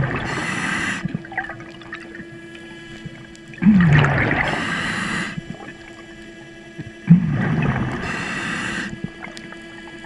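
Scuba diver breathing through a regulator: a rush of exhaled bubbles and the regulator's hiss about every three and a half seconds, three breaths in all. Under it runs the steady whine of the underwater scooter's motor.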